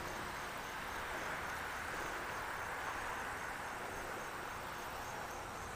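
Crickets chirping steadily, a faint evenly repeating chirp over an even hiss of outdoor background noise.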